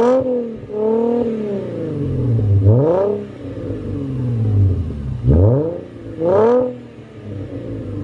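Mercedes-Benz C300 W204 V6 with its mufflers removed, revved in several quick throttle blips, each rising sharply and dropping back toward idle. It runs smoothly and sounds kind of high pitched, the rough idle cured by new spark plugs.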